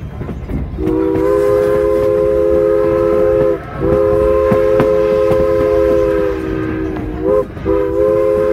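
Steam whistle of No. 89, a 1910 2-6-0 Mogul, sounding the grade-crossing signal: long, long, short, long. The whistle sounds a chord of several notes, over the low rumble of the moving train.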